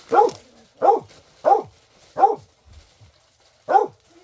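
A dog barking: four quick barks about two-thirds of a second apart, then a pause and one more bark near the end. Each bark drops in pitch.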